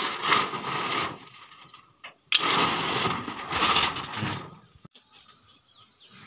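Corrugated roofing sheet scraping and rattling against a wooden frame as it is pulled down. There are two long stretches of noise: one at the start lasting about a second, and a second that begins abruptly a little over two seconds in and lasts about two seconds.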